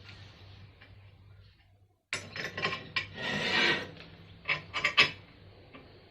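Steel pieces clinking and scraping against each other as they are handled, with several sharp clinks. The sounds come in two short stretches, cut apart by a brief moment of dead silence.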